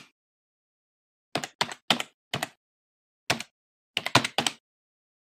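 Computer keyboard keystrokes clicking in an irregular run of single keys, then a quick flurry of several keys near the end. This is the typing sound that goes with text being typed at a terminal prompt.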